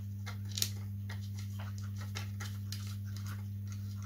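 Small faint clicks and scratches of fingers handling a model autogyro's rotor blade at the rotor head and threading a locking nut onto its bolt, with one sharper click about half a second in, over a steady low hum.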